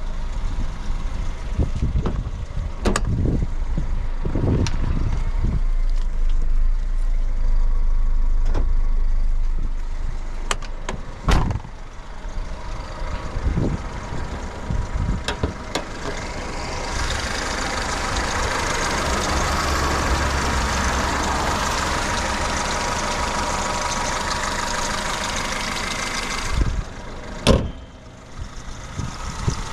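A 1999 Honda HR-V's 1.6-litre D16A engine and CVT running, heard from inside the cabin, with scattered knocks and rattles. For about ten seconds in the second half a steady rushing hiss joins in, then stops suddenly, and a single sharp knock follows.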